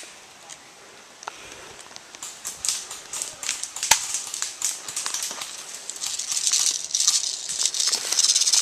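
A sharp snap at the start, fitting a shot from an airsoft pistol, then a few scattered clicks and a crackling rustle of dry forest-floor leaves and movement that grows louder from about two and a half seconds in.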